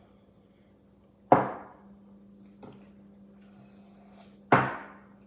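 Two sharp knocks about three seconds apart, a mixing utensil struck against the bowl while working thick, sticky brownie batter.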